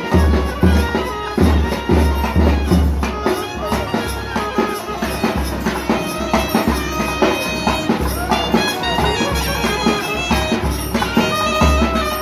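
Nadaswaram playing a held, ornamented melody over deep, steady beats of a thavil drum: South Indian temple procession music.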